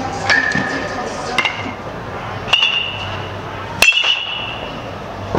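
Metal baseball bats striking balls: a sharp ping with a short high ringing, about a second apart.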